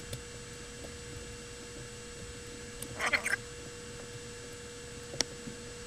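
Small handling noises as an airsoft AEG's motor wire connector is fitted onto the motor terminal: a brief scratchy rustle about three seconds in and a single click a little after five seconds, over a steady faint electrical hum.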